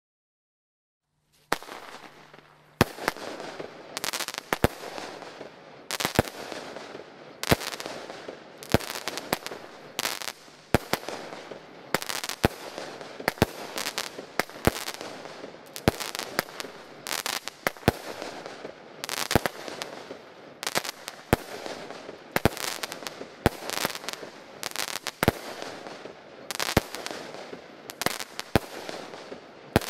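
A 25-shot fireworks battery (cake) firing: after a brief fizz of the fuse about a second and a half in, about two dozen sharp bangs go off roughly one a second, each shot bursting into palms with crackling chrysanthemums that fill the gaps between the reports.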